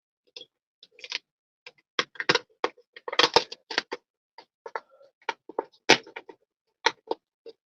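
Tape being peeled off a motorcycle helmet's shell, making irregular crackles and clicks.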